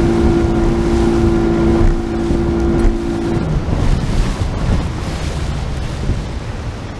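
A boat's motor running with a steady whine that cuts off about three and a half seconds in, leaving wind buffeting the microphone and water rushing past the hull.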